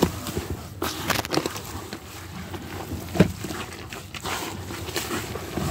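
A hand mixing wheat bran into soaked bread and water in a plastic bucket, making poultry mash. There is irregular rustling and wet scraping, with a sharp knock a little past three seconds in.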